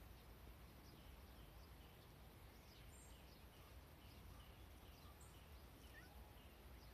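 Faint outdoor ambience: small birds chirping in short, repeated calls over a low, steady rumble.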